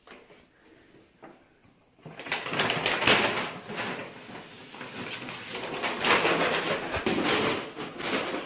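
Paper shopping bag rustling and scraping over a tiled floor as a cat with its head stuck inside it moves about, starting about two seconds in and going on in rough, uneven bursts.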